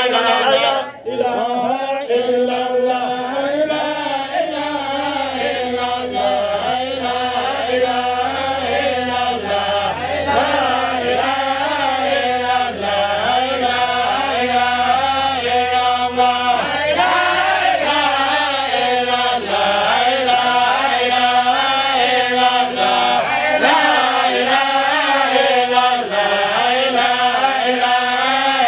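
Men's voices chanting a continuous melodic Islamic devotional chant (dhikr), with a brief drop in level about a second in.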